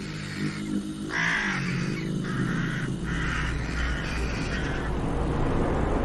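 Eurasian magpies giving harsh chattering calls in a quick series of rasping bursts, over a low steady drone.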